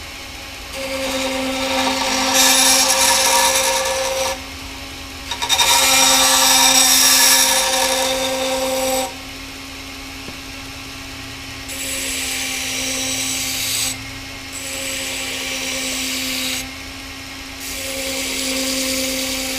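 Vevor 2x72 belt grinder running with a steady hum while a workpiece is pressed to its lightweight sanding belt in five separate passes, each a hissing grind; the second pass is the longest and loudest.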